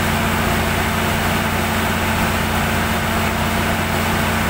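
Perkins diesel generator set running at a steady speed, a constant low drone with no change in pitch or level.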